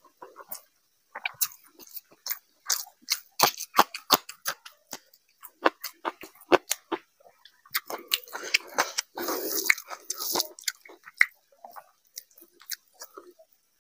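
Close-miked chewing of a mouthful of rice and mutton curry: irregular wet smacks and mouth clicks, heavier about eight to ten seconds in.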